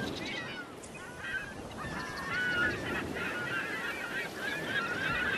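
A flock of birds calling: many short, overlapping squawks and chirps throughout, over a low rumble.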